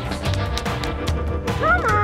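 Background music with a steady beat. Near the end, a short voice-like sound glides up and then down.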